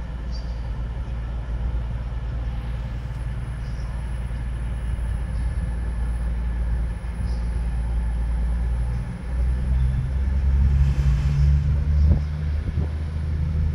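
Diesel train engine running, a steady low drone that swells louder about nine seconds in.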